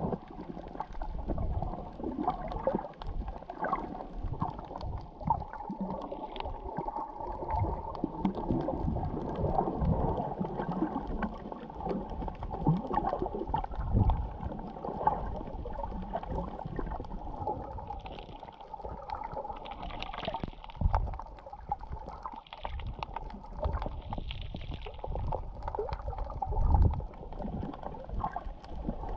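Muffled underwater gurgling and sloshing of water, with many irregular low thumps, as heard with the microphone below the surface.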